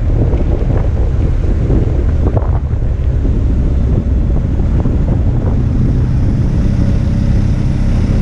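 Wind noise on a motorcycle-mounted camera's microphone at riding speed, a steady loud rush with the motorcycle's engine running underneath; faint steady engine tones come up from about six seconds in.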